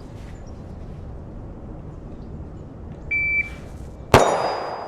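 Shot-timer beep, then about a second later a single 9mm pistol shot from a Glock 43X, followed by the ring of a struck steel target plate.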